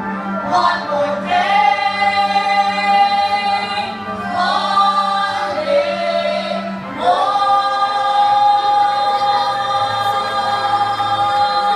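A children's choir singing, with short breaks just before four and seven seconds in, then one long held note to the end.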